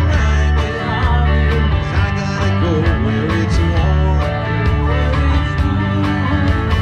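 Live band playing amplified music: electric guitars over a low bass line and a drum kit keeping a steady beat.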